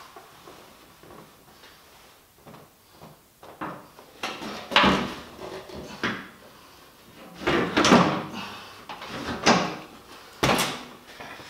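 Clunks and knocks of a steel-tube golf cart rear seat being set down onto the cart's back deck and pushed into place: a handful of separate thuds, the loudest about five, eight and ten seconds in.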